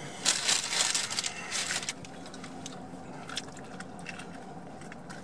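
A burger is handled and bitten into, with crinkling and crunching for the first two seconds, then quieter scattered clicks of chewing.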